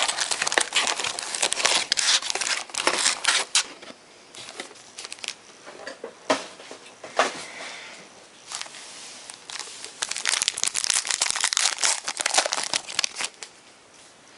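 Trading card packaging crinkling and tearing as it is opened by hand. The crackling comes in bursts: a dense stretch at the start, scattered crinkles in the middle, and another dense stretch from about ten seconds in.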